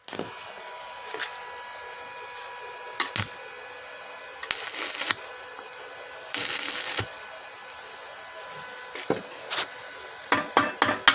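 Electric arc welding on the silencer's steel pipe: two short hissing, crackling bursts of about half a second each, the tack welds, over a steady electrical hum. Scattered metal clicks and knocks run through it, with a quick run of sharp metallic taps near the end.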